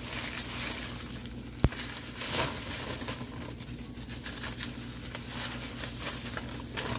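Parchment paper and a plastic freezer bag rustling and crinkling as frozen diced banana peppers are tipped into the bag, with one sharp click about one and a half seconds in. A steady low hum runs underneath.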